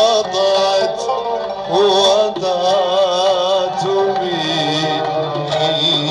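A male Arabic devotional singer (munshid) singing an ornamented melismatic line, holding long notes with a shaking vibrato and sliding between pitches, over a steady low drone.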